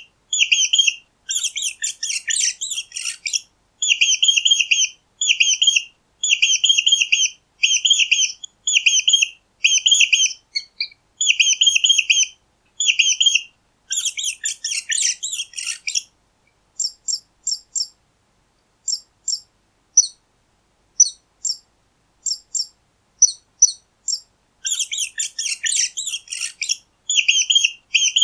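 Mice squeaking: short high-pitched squeaks repeated about once a second, broken by three bursts of busier, faster squeaking, with a stretch of sparser, briefer squeaks in the middle.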